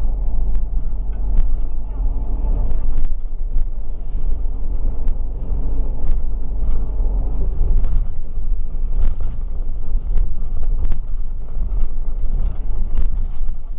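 City bus running on the road, heard from inside: a steady low engine and road rumble with scattered rattles and knocks.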